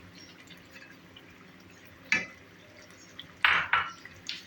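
A spoon knocking and scraping against a cooking pot as korma with cream is stirred and fried down: one knock about two seconds in, then a quick cluster of clatters and scrapes near the end.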